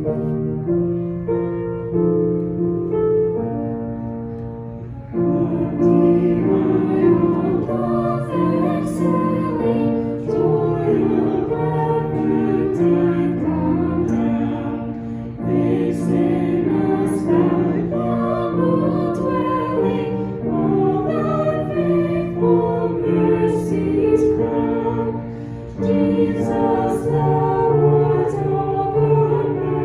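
Choral music: a choir singing in held, sustained chords.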